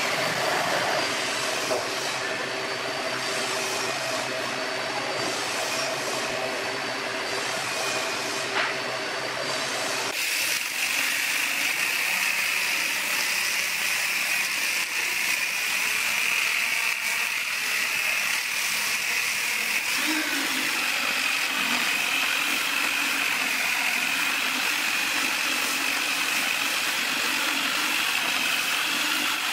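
Handheld electric drill spinning a homemade drum of stacked discs against a rusty flat steel bar, scouring off the rust: a steady high whine over a scratchy grinding hiss. For about the first ten seconds a steadier motor hum with several fixed tones is heard instead, switching abruptly to the grinding.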